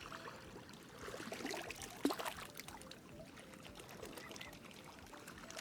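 Swan giving a few short calls over splashing, trickling water, with the loudest, sharpest call about two seconds in.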